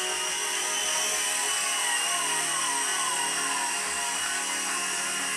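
Small indoor RC toy helicopter hovering, its electric motor and rotor giving a steady whirring whine.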